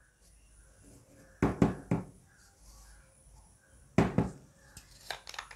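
Small plastic paint jars knocking and clicking against a tabletop as they are handled and set down: a short cluster of knocks a little after a second in, another at about four seconds, and a few light taps near the end.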